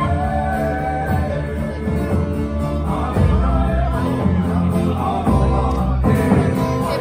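Live Tahitian aparima music: a band with strummed guitars accompanying a singing voice.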